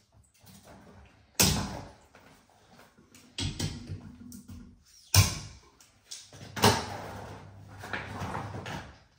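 Four sharp knocks and clatters, spaced about one and a half to two seconds apart, with scraping and rustling in between, as hand tools are handled at copper pipework.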